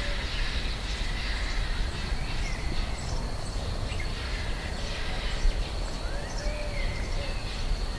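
Countryside ambience: scattered bird chirps and calls over a steady high-pitched insect drone and a low background rumble.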